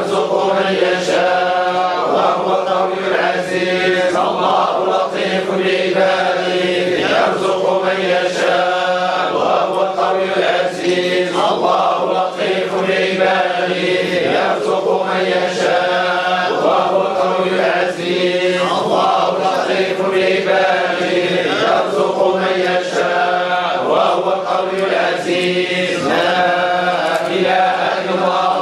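Men chanting a Sufi dhikr together, unaccompanied and heard through a microphone. The voices run on without a break over a steady held low tone, with the phrase recurring about every two seconds.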